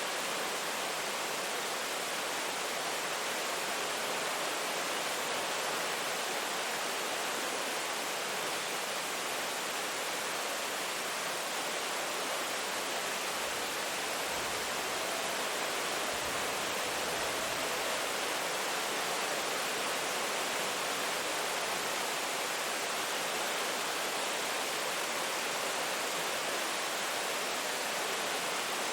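Steady heavy rain, an even, unbroken hiss of falling water.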